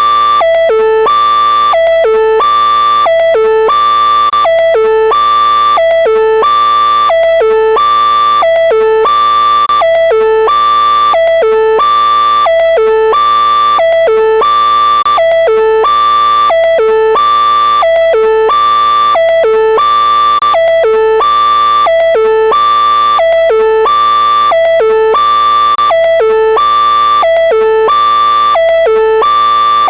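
Synthesized electronic alert tone looping continuously: a short figure of a few stepped pitches that repeats about every second and a half at a steady loudness.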